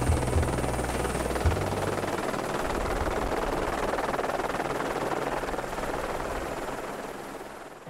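Helicopter in flight: a steady rushing roar of rotor and engine that fades out near the end.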